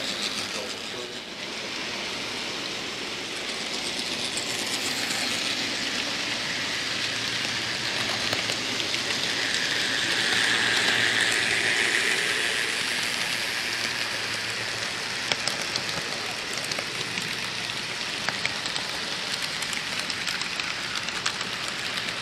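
Model train running along the layout, heard from the camera it carries: a steady rattling hiss of motor and wheels on the rails that grows louder about ten seconds in, with scattered light clicks.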